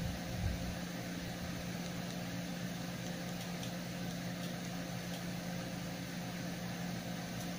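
Steady low hum and hiss of background room noise, with a constant low-pitched drone and no distinct events.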